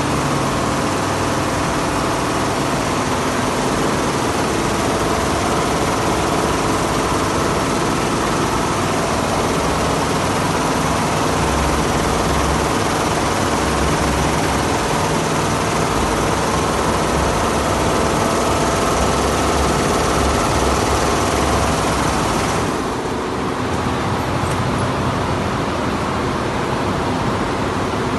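Multi-head computerized embroidery machine running at speed, a steady mechanical noise with a brief dip in level about three-quarters of the way through.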